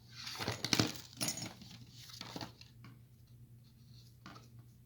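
Small metal door-lock hardware (latch bolts and parts) being handled, with a cluster of light clinks and rustling in the first second and a half, a few more a little after two seconds and a faint click later.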